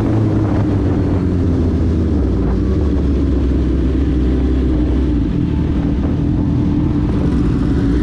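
Suzuki GSX-R1000 K8 inline-four running through a decatted Cobra twin exhaust, heard at the rider's helmet while cruising. The engine note sags slightly at first, then holds steady at a low, even engine speed.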